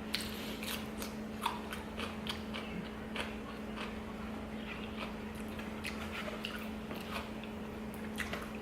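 A person chewing food close to the microphone: irregular wet clicks and crisp crunches, with a steady low hum underneath.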